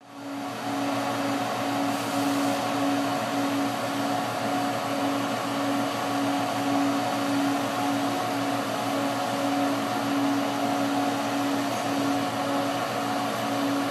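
Steady mechanical hum of running shop equipment, with a droning tone under a wash of fan-like noise.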